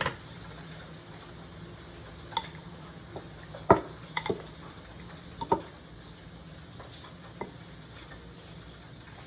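Flour-and-egg-coated calamares frying in oil with a steady sizzle, broken by about half a dozen sharp clinks of a utensil against the pan, the loudest a little under four seconds in.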